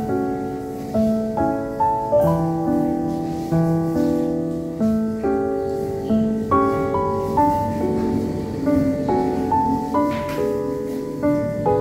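Background instrumental music: a gentle melody of struck, piano-like notes in a steady rhythm.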